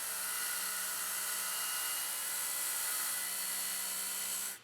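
JoolTool bench sharpener running, spinning a green 1-micron 3M radial bristle brush with the pocket knife's edge held against it to polish off the burr: a steady motor whine under a bright brushing hiss. It cuts off suddenly near the end.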